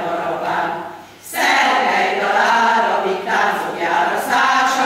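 Women's choir singing in several voices, with a short break about a second in before the next phrase begins.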